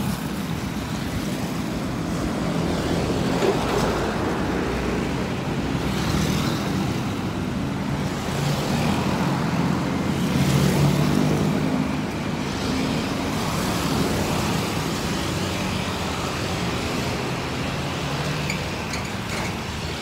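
Passing road traffic: motorcycles, cars and a bus driving by close to the microphone, engines running steadily and swelling as each vehicle passes, loudest about ten seconds in.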